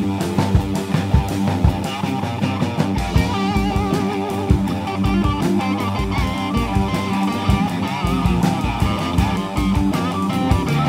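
Instrumental rock jam: a guitar plays a lead line of wavering, bending notes over a drum kit and a low sustained part.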